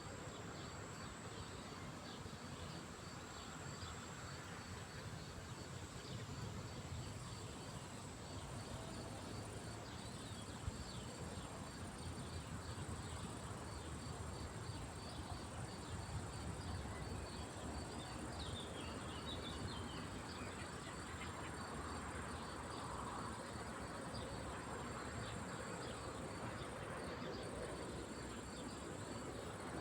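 Insects chirping steadily: a continuous high buzz over an evenly repeating pulsed chirp. A few short bird chirps come about two-thirds of the way through, over a steady low background rumble.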